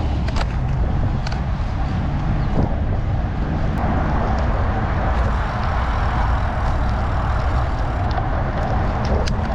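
Steady noise of road traffic with a heavy low rumble, growing a little louder about four seconds in.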